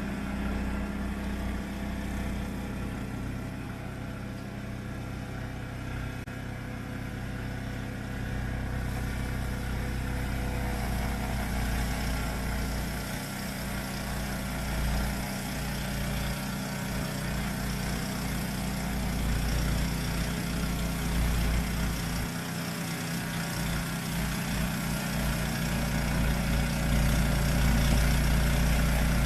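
Yamaha YT1070 snowblower engine running steadily, growing louder toward the end with a slight shift in its tone about twenty seconds in. The machine is being run after its crawler tracks were tightened, to check for a creaking in the undercarriage.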